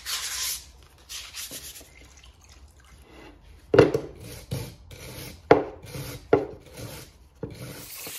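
Hand-sanding carbon build-up off a piston crown: short rasping strokes, with several louder scrubbing strokes in the second half. Near the end, a compressed-air blow gun starts a steady hiss.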